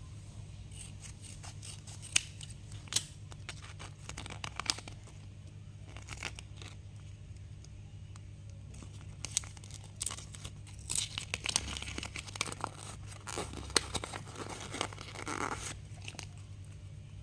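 Plastic blind-bag packaging being torn open and crinkled by hand, in scattered crackles and sharp clicks that grow busier in the second half. A steady low hum runs underneath.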